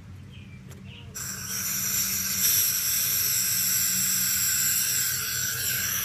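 Aerosol can of Fix-a-Flat tyre sealant hissing steadily as it discharges through its hose into a lawnmower tyre's Schrader valve. The hiss starts about a second in and cuts off suddenly at the end.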